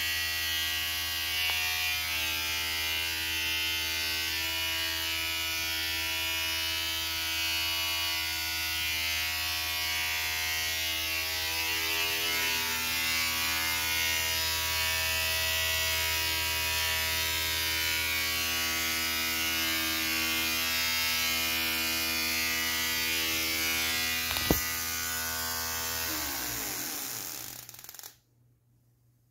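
A small electric motor on a bench test rig runs at a steady speed with a whine, then winds down and stops near the end. A single sharp click comes shortly before it winds down.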